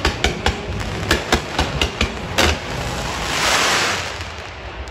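Stadium pyrotechnics firing from ground launchers: a rapid, uneven string of about ten sharp bangs over the first two and a half seconds. A loud rush of noise then swells and fades.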